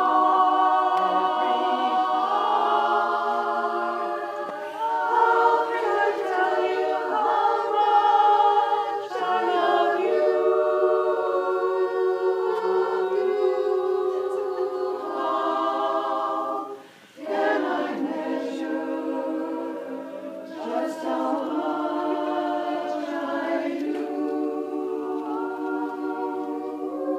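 A group of women singing a cappella together, holding long notes with several voice parts at once. The singing breaks off briefly about two-thirds of the way through, then resumes.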